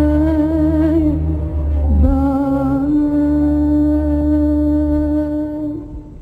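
Woman singing an Egyptian Arabic song live, holding long notes with vibrato over low sustained orchestral accompaniment. The note breaks about two seconds in, a second long note follows, and it fades out near the end.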